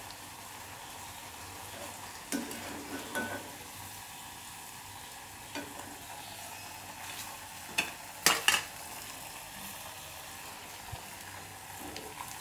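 Wheat parotta deep-frying in a kadai of hot oil, a steady sizzle. A few sharp knocks break it, the loudest about eight seconds in.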